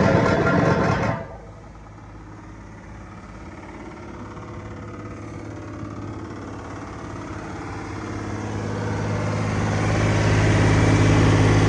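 Ammann ARX26 tandem roller's diesel engine. It runs loud for about a second, then drops abruptly to a much quieter steady idle, which grows louder over the last few seconds.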